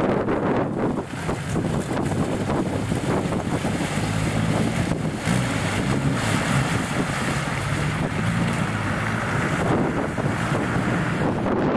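Jeep Wrangler's engine running as it wades through a deep muddy water hole, water sloshing and splashing around it, under heavy wind buffeting on the microphone.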